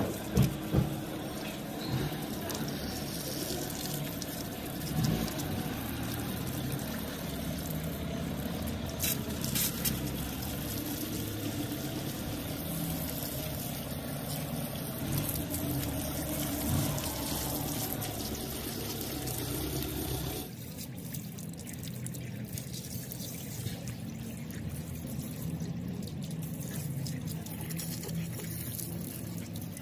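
Water from a garden hose spraying and splashing over a bare engine block and running off onto wet concrete, a steady splashing hiss. A couple of sharp knocks come right at the start, and the spray grows a little quieter about two-thirds of the way through.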